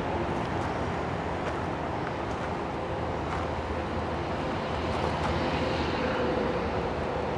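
Steady rumble of distant road traffic, with faint footsteps on a dirt path about once a second.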